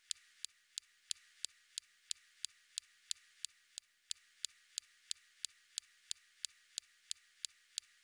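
Perseverance rover's SuperCam laser striking a rock on Mars, heard through the rover's microphone. It is a steady series of sharp clicks, about three a second, over a faint hiss, with each click the snap of a laser pulse vaporising a tiny spot of the rock.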